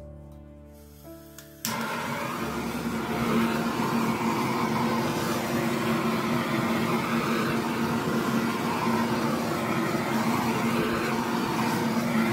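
A handheld blow torch comes on suddenly about two seconds in and keeps running with a steady loud hiss and a low hum while its flame is passed over a wet acrylic pour painting to bring up cells. Soft background music fades out just before it.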